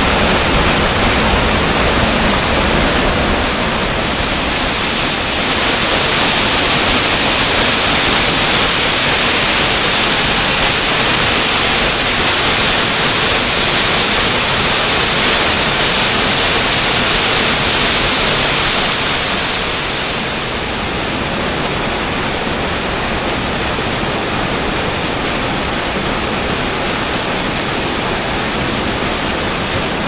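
Small mountain waterfall cascading over rocks into a pool, heard up close as a steady, dense rush of water. It becomes slightly quieter about two-thirds of the way in.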